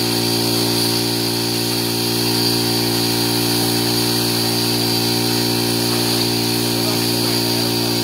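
Motor-driven water pump running steadily with a constant hum, while a strong hose jet sprays water.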